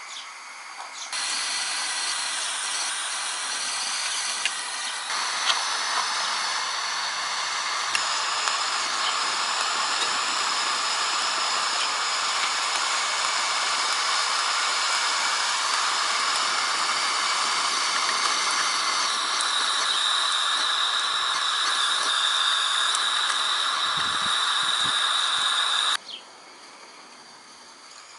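Steam hissing steadily from a coal-fired model locomotive's vertical boiler. It starts suddenly about a second in and cuts off suddenly near the end, with a thin whistling tone joining it for the last several seconds.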